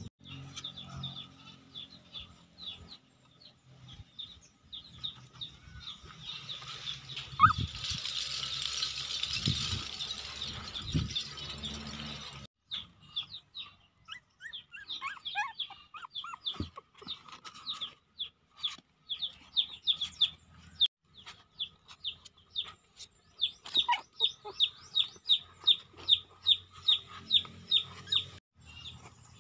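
Birds chirping in short, high, repeated calls, in quick runs of about three a second toward the end. A rustling hiss comes in for several seconds about a quarter of the way in.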